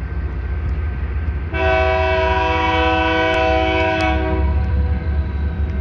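Diesel freight locomotive's air horn blowing one long chord of several notes for about three seconds, starting about a second and a half in, over the steady low rumble of a train at the crossing.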